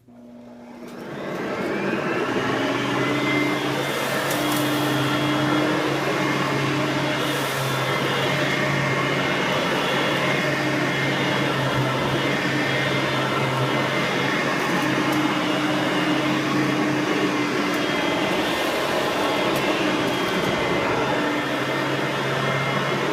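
Hoover vacuum cleaner switched on, its motor spinning up over the first couple of seconds and then running steadily.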